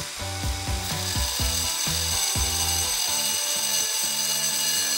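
Angle grinder with a stone-cutting disc cutting a circle through a ceramic floor tile, a steady hiss of the blade in the tile, mixed with background music with a stepping bass line.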